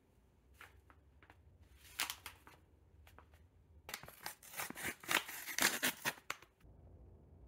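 A foil-lined kraft paper coffee bag crinkling as it is handled, then torn open across the top by hand: a dense run of tearing and crinkling from about four seconds in until after six.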